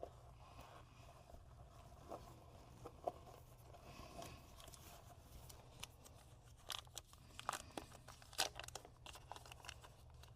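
Faint crinkling, rustling and tearing of product packaging being handled and opened, with scattered small clicks. It is sparse at first and busier in the second half.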